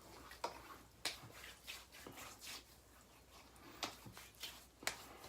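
Faint handling noise: a few short, sharp clicks and taps, the clearest about half a second in, at one second, and near four and five seconds in, over a quiet room.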